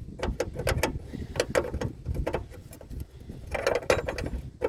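Irregular small metallic clicks and scrapes of hands and tools working a stiff brake hose fitting, with one longer scrape about three and a half seconds in.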